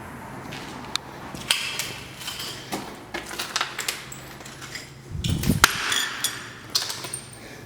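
Irregular clicks, knocks and crunches of footsteps and debris being stepped on or moved, with a heavier thump about five seconds in.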